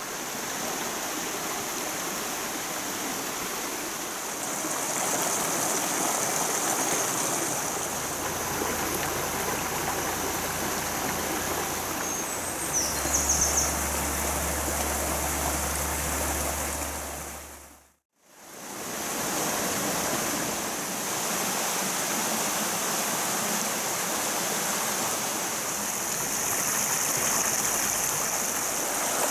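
A small mountain stream running over rocks and little cascades, a steady rush of water. It cuts out for a moment about eighteen seconds in and comes straight back.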